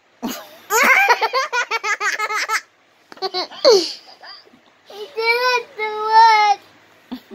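Young child laughing hard: a fast run of short ha-ha pulses, then more bursts, then two long high-pitched wavering laughs.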